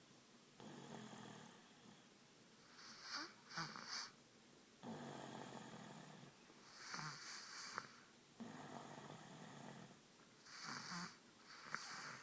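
Slow, rhythmic snoring from a sleeper: three snores about four seconds apart, with quieter breaths between them.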